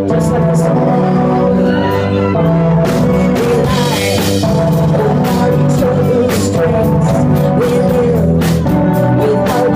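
Live rock band playing a song, with a woman singing lead over drums, electric guitar and keyboards; the drum hits come steadily and more strongly from about three seconds in.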